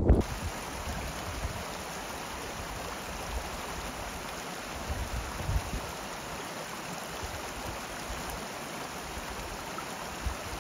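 Steady, even hiss of running water.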